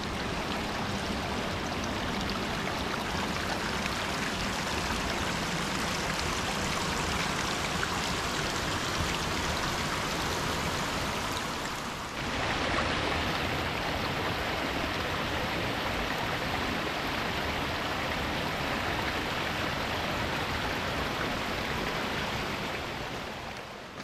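Fast-moving river water rushing steadily over rocks. About halfway through the rush dips briefly, then comes back slightly louder.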